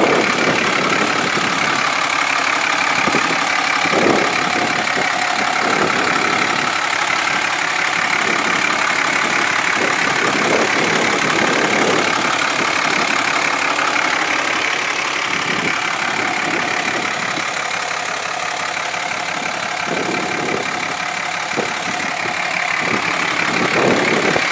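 A 6.7-litre Cummins turbo diesel in a 2007 Dodge Ram 2500 pickup, idling steadily.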